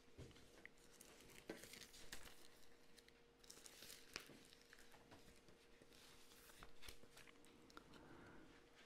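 Near silence: room tone with faint scattered clicks and soft rustles over a faint steady hum.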